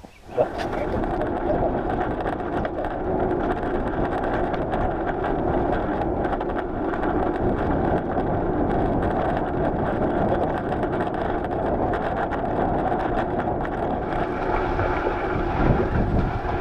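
Steady rush of wind on the microphone and tyre noise from a bicycle being ridden along a road, cutting in abruptly about half a second in.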